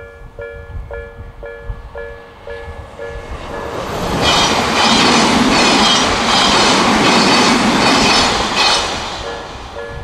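Japanese railway level-crossing alarm, the Odakyu Hakone-type ("Nikko") tone, chiming about twice a second. A train passes from about four seconds in, its rumble drowning the alarm, which comes back near the end.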